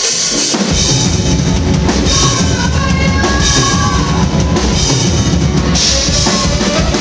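Ska-punk band playing live and loud: drum kit, electric bass and guitars, with saxophone holding long notes. The full band crashes in about half a second in.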